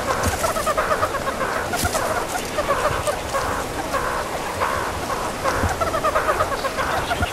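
A group of meerkats giving quick chirping, clucking calls in repeated bursts while the group moves together.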